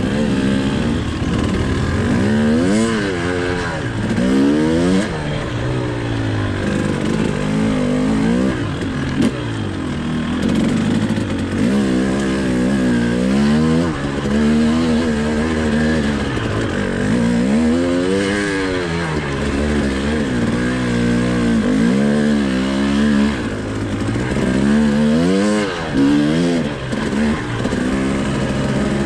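A 2019 Husqvarna TE 300i two-stroke dirt bike engine being ridden, revving up and dropping back again and again as the throttle is worked, with its pitch rising and falling every couple of seconds.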